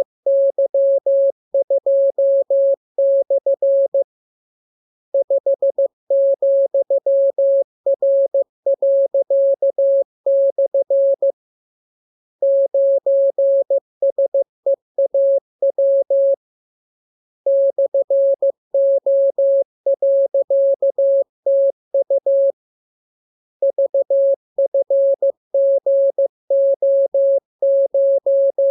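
Morse code (CW) training tone: a single steady mid-pitched beep keyed on and off into dots and dashes, sent as practice copy in runs of a few seconds each, with a pause of about a second between runs.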